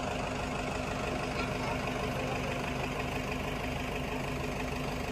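An engine idling steadily, a low even hum that holds one pitch throughout.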